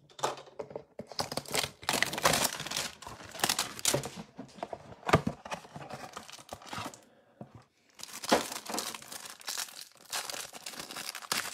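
Packaging of a trading-card hanger box being torn open by hand: irregular tearing and crinkling, with a short pause about seven seconds in.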